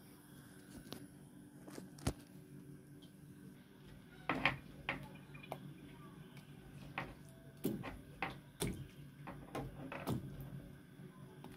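Whole tomatoes being dropped into a steel pot of cocoyam chunks in water: a run of short plops and knocks against the metal, starting a few seconds in, over a steady low hum.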